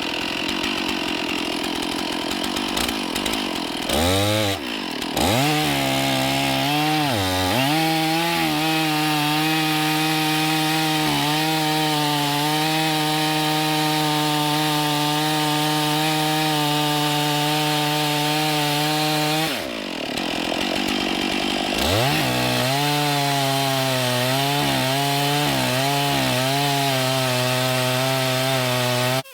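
Stihl 461 two-stroke chainsaw running at steady high revs under load in a Granberg Alaskan chainsaw mill, ripping lengthwise through a large white pine log. The engine speed drops and climbs back up about four seconds in and again about twenty seconds in. The sound cuts off suddenly at the end.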